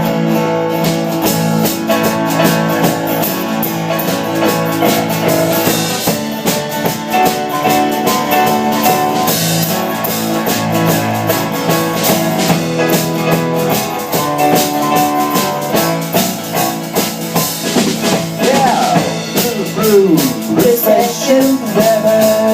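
Live rock and roll band playing loud, with drum kit and guitars, all starting at once at the very beginning. About 18 seconds in, a wavering, sliding lead line comes in over the band.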